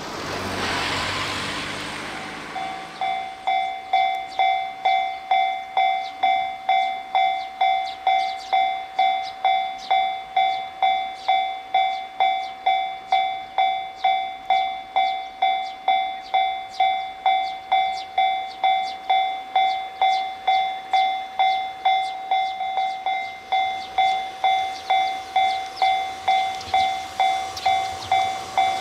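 Train running noise in the first two seconds, then a Japanese level crossing's electronic warning bell ringing steadily, about two strikes a second, as a train approaches.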